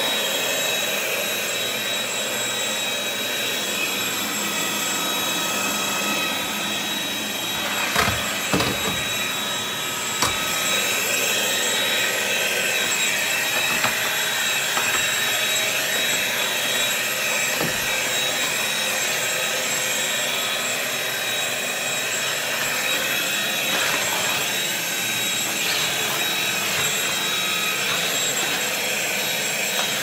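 Corded stick vacuum cleaner running steadily, its motor giving a high whine over the rush of suction as the floor head is pushed over tile and a bath mat. A few short knocks come about eight to ten seconds in.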